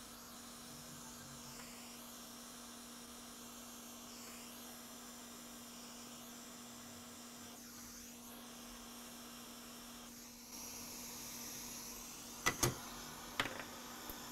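Steady electrical hum and hiss of a repair bench. The hiss grows a little louder about ten seconds in, and a few sharp clicks come near the end.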